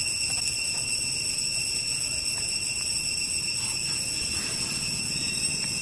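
Insects droning in a steady, high, unbroken whine.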